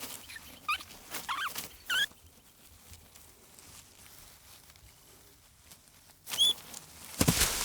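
A series of short, high squeaks from a small animal in the first two seconds, then near quiet. Another squeak comes a little after six seconds, followed near the end by a sudden loud burst of noise.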